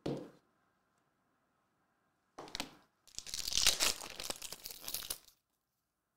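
A foil trading-card pack (2023 Select AFL Legacy) being torn open: a short rip, then about two seconds of tearing and crinkling wrapper.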